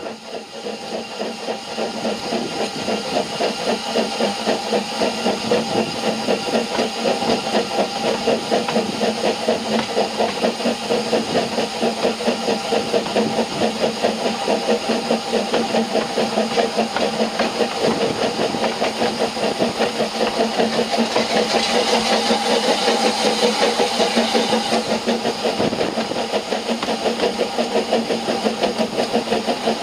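Exhaust of the Ffestiniog Railway's Double Fairlie steam locomotive no. 12 "David Lloyd George" chuffing in quick, even beats as it hauls the train, heard from the carriage directly behind it. A louder hiss comes in for a few seconds about two-thirds of the way through.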